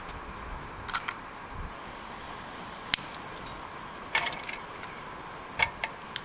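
About six sharp clicks and light clinks of small objects being handled, spread out one at a time with a short cluster near the middle, over a steady background hiss.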